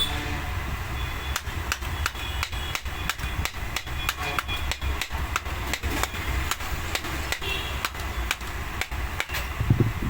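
Irregular sharp light taps, about two or three a second, over a steady low hum.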